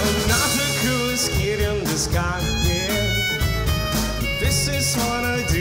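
A pop-rock band playing an instrumental passage: violin over acoustic guitar, electric guitar and drums, at a steady beat.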